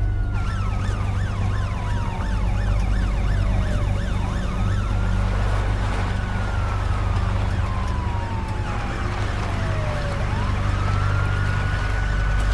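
Police car sirens: one in a slow wail that falls and rises twice, another in a fast yelp that fades out about halfway through, over a steady low rumble.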